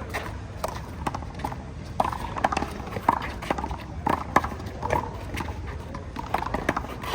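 Rubber handball rally: the ball is slapped by hand and smacks off the wall and concrete court in a quick, irregular series of sharp smacks.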